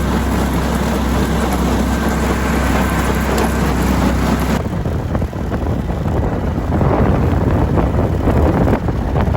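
Boat motor running steadily under wind noise. About four and a half seconds in the motor sound stops, leaving gusty wind buffeting the microphone.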